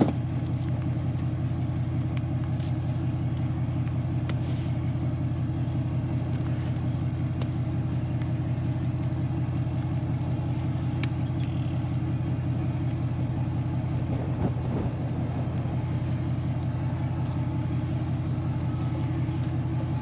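Truck engine idling with a steady, even low rumble. A sharp click sounds right at the start.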